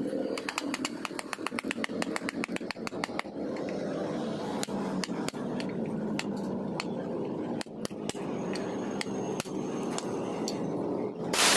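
Light metal clicks and taps as a deep socket tool is handled against the bearings of an aluminium scooter transmission case: a fast run of clicks for the first few seconds, then single taps every second or so, over a steady low hum. A plastic parts bag rustles loudly at the very end.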